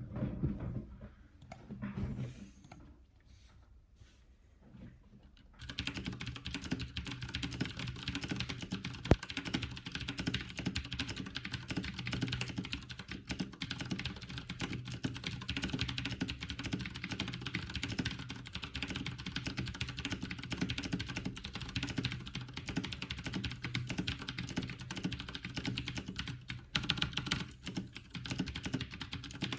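HyperX Alloy mechanical keyboard with clicky Cherry MX Blue switches being typed on fast and continuously from about five and a half seconds in, after a few scattered knocks; one keystroke about nine seconds in is much louder than the rest.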